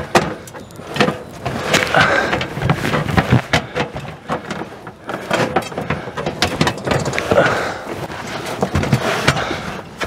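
Aluminium extension ladder knocking and clattering as a man climbs it carrying a boxed RV rooftop air conditioner, the box bumping and scraping against the rails: a run of irregular sharp knocks with rustling between them.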